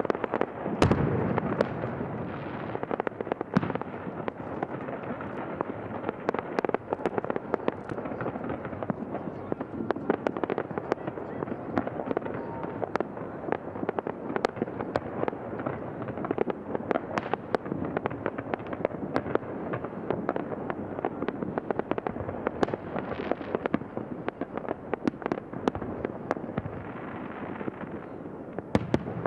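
Fireworks display: a dense, continuous crackle of pops with many sharp bangs in quick succession, loudest about a second in.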